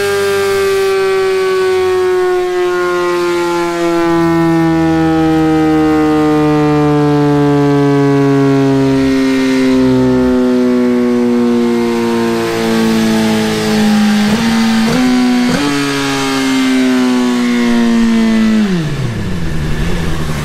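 Suzuki GSX-R1000 inline-four engine running hard on a motorcycle dyno, its pitch sinking slowly and steadily, with a few brief stutters about three-quarters of the way through. Near the end the revs drop off sharply.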